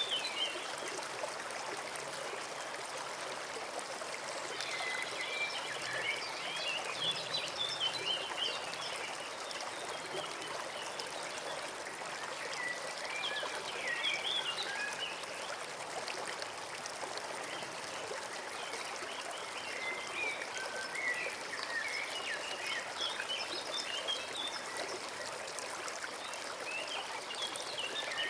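A forest brook running steadily over stones. Bursts of bird song, quick high chirps and twitters, come in every several seconds.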